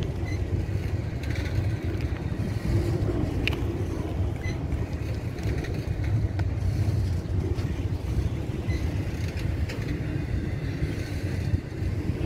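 Double-stack intermodal freight cars rolling past close by: a steady low rumble of steel wheels on rail, with occasional sharp clicks.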